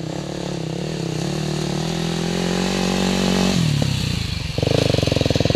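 Enduro dirt bike's engine approaching at steady revs and growing louder; about three and a half seconds in the rider rolls off the throttle, and near the end the engine is loud and close, chugging at low revs.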